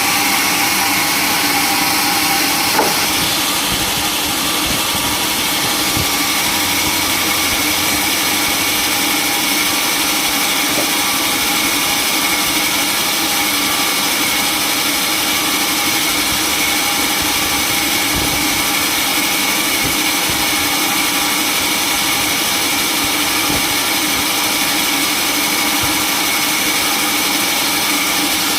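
Sawmill machinery running steadily, a constant mechanical hum with no pauses, with one short knock about three seconds in.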